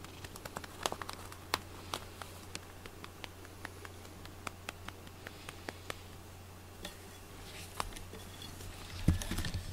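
A hand stroking and patting a cat's fur, giving irregular small crackles and taps, with a louder rustle and thump about nine seconds in.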